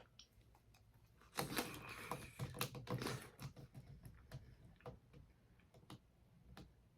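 Biting into and chewing a homemade wax candy with a Jello filling: a dense crackling crunch of the wax shell about a second and a half in, then scattered small clicks as it is chewed.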